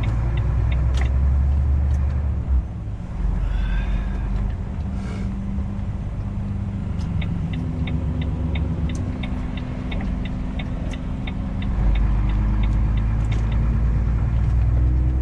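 Truck engine running, heard inside the cab, with the turn-signal indicator ticking about three times a second through the middle of the stretch.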